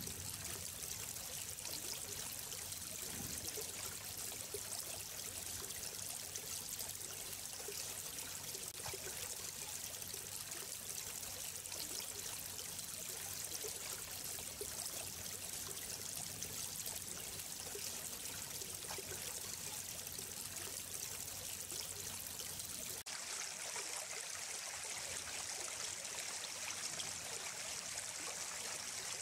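Running water flowing steadily in an even rush. About 23 seconds in, the sound changes abruptly: the low rumble drops away and a brighter hiss remains.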